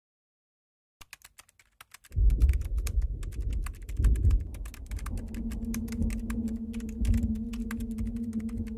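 Keyboard typing sound effect: rapid, uneven keystroke clicks starting about a second in, over a low rumbling drone that comes in a second later, with a steady low hum joining about halfway through.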